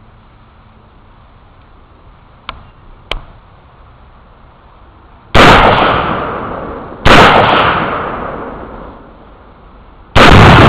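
Three loud gunshots, about a second and a half and then three seconds apart, each followed by a long rolling echo; the last one comes with the blast of the exploding target. Two faint clicks come a few seconds before the shots.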